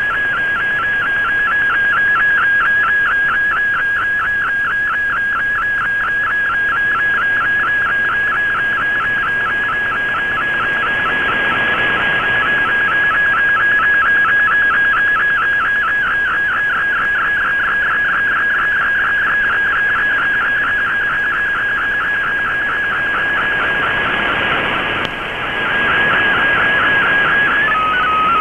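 Shortwave digital image signal in MFSK picture mode, heard through an Icom IC-R8600 receiver: a steady whistling tone with a fast, even pulsing over radio hiss, as a colour picture is transmitted line by line. The hiss rises and falls with the fading signal, and near the end the picture tone stops and a lower, stepping data tone begins.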